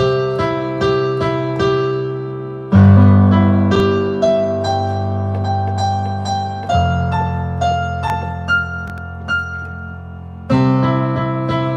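Digital piano played with both hands: held low chords that change three times, under a melody of single notes.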